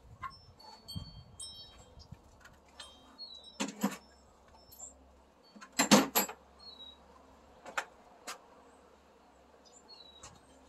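A few sharp knocks and clatters of tools being handled and picked up from a folding table, the loudest about six seconds in, over scattered faint, high ringing tones.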